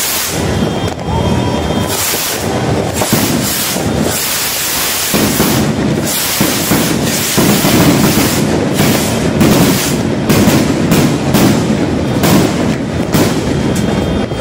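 Fireworks and firecrackers going off in a dense, continuous barrage: many sharp bangs in quick succession over a constant rumble, coming thicker in the second half.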